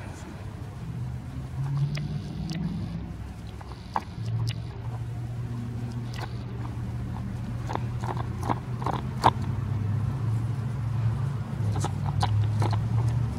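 Puppies nibbling and mouthing at grass, giving short scattered clicks and snaps, clustered about eight seconds in and again near the end, over a steady low motor hum.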